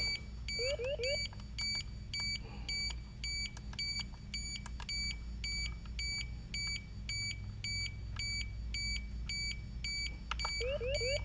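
FrSky Taranis X9D Plus radio transmitter beeping: short, high, evenly spaced beeps, about two and a half a second, with a quick run of three rising chirps about half a second in and again near the end.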